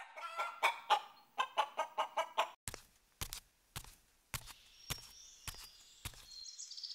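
A rooster clucking in a quick run of short calls. These give way to a series of sharp clicks, about two a second.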